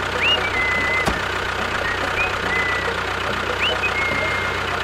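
Tractor engine running steadily with a regular low chug, with a few short rising whistles like bird chirps over it and a single click about a second in.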